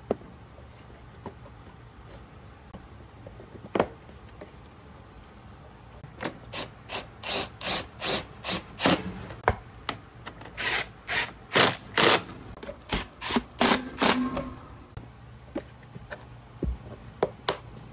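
Fasteners being fitted to a motorcycle's plastic side fairing: a single click about four seconds in, then a run of short, sharp clicks, about two a second, for some eight seconds, then a few faint ticks.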